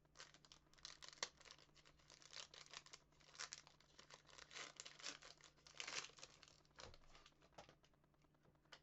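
Faint crinkling and tearing of a hockey card pack's wrapper as it is ripped open, in a quick run of short rustles that die away near the end.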